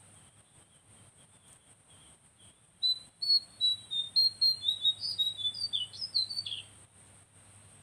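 Lesser shortwing (cingcoang coklat) singing: a quick, jumbled run of short, high, downslurred notes lasting about four seconds, starting about three seconds in after a faint, thin series of notes.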